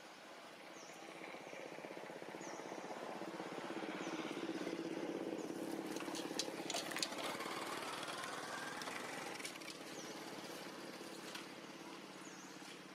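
Engine of a passing motor vehicle, swelling over several seconds, loudest around the middle, then fading away. A short high chirp repeats every second or so, and a few sharp clicks sound near the middle.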